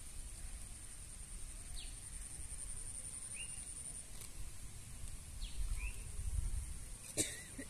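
Outdoor rural ambience: a steady, evenly pulsing high insect trill with a few short bird chirps over it. A sharp click comes near the end.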